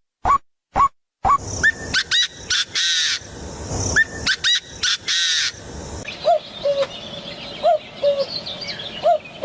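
Several birds calling over one another in a morning chorus: a few short falling calls, then a dense mix of chirps and harsher calls, and from about two-thirds of the way in a low two-note call repeated three times.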